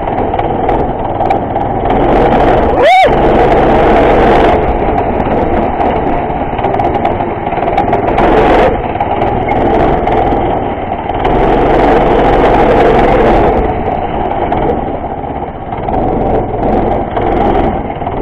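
Harbor Freight Predator 212cc single-cylinder four-stroke engine on a go-kart running under way, its speed and loudness rising and falling with the throttle as the kart is driven. A brief squeal rises and falls about three seconds in.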